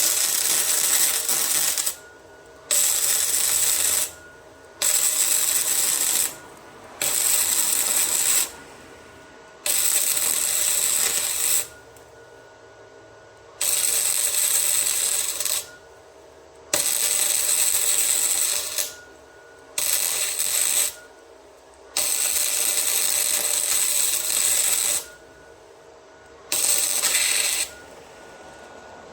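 Welding arc crackling and sizzling in about ten short runs of one to three seconds each, stopping and starting abruptly as a turbo flange is welded up.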